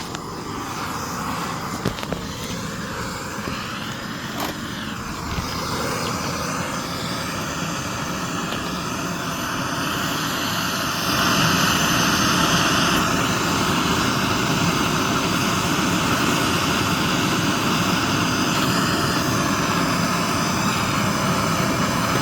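Gas torch flame blowing steadily while heating gold in a mold to melt it, getting louder about halfway through.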